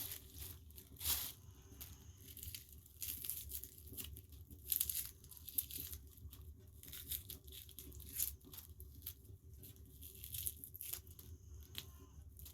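Irregular rustling and crinkling, as of plastic or paper being handled and torn, in short uneven bursts.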